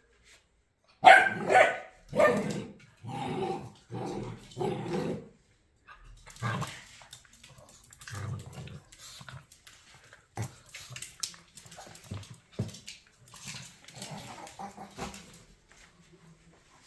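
Small dogs barking at each other: about six loud barks in the first five seconds, then a run of quieter, shorter dog sounds.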